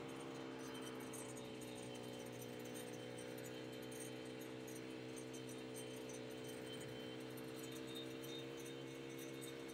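1973 Polaris Custom II snowmobile's two-stroke engine running at a steady speed as the sled rides across the snow, heard from a distance.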